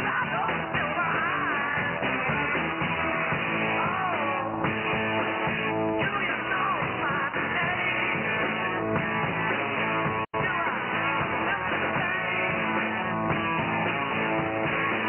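Rock music with guitar and singing played over a shortwave pirate broadcast received in upper sideband, so the sound is narrow and thin with no highs above about 3 kHz. The signal drops out to silence for an instant about ten seconds in.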